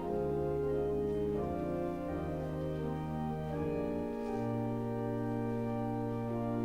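Organ music: slow, sustained chords that change every second or two, with a long low bass note entering about four seconds in.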